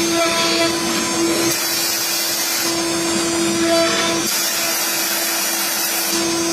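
CNC router spindle running with a steady whine while the bit cuts acrylic, the cutting hiss shifting in strength every second or two as the cut goes on.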